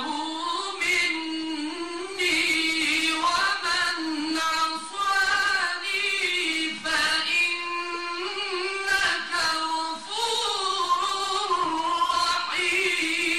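A man reciting the Quran in the melodic mujawwad (tajwid) style, holding long high notes with ornamented turns and breaking off briefly for breath every few seconds.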